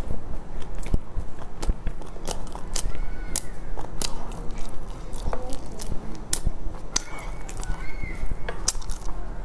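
Close-miked chewing of a soft filled bread bun: frequent sharp, wet mouth clicks and smacks.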